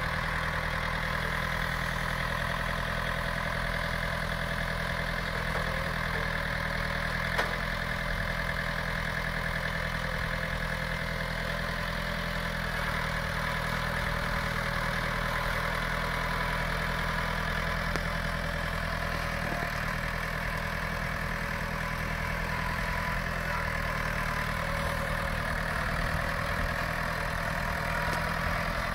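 John Deere 4600 compact tractor's diesel engine idling steadily, with one brief click about a quarter of the way in.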